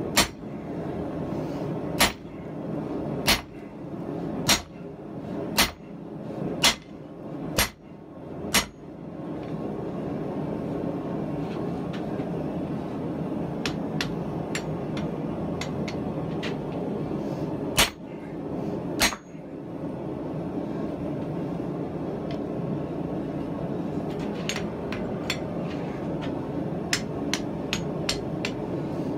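Hand hammer striking hot 4140 steel on a Harbor Freight anvil: eight heavy blows about one a second, then lighter taps, two more heavy blows, and a run of quick light taps near the end. A steady roar runs underneath.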